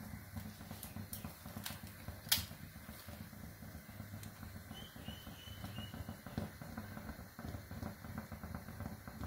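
Hand-operated idiyappam (string hopper) press being worked as rice-flour dough is pushed out through its die: a low grinding with many soft clicks, and one sharper click a little over two seconds in.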